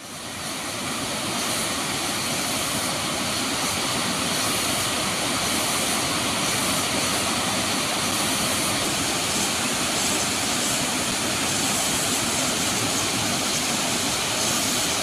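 Water pouring over an overflowing dam spillway and cascading down a rocky channel: a steady, loud rush of water that fades in over the first second or so. The reservoir is full and spilling because heavy rain has raised the inflow.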